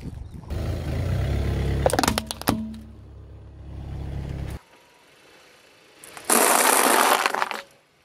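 Car tyre rolling slowly over asphalt with a low rumble, as a plastic toy under it breaks with a few sharp cracks about two seconds in. After a short lull comes a loud crunching burst of about a second as dry spiral pasta is crushed, cutting off abruptly.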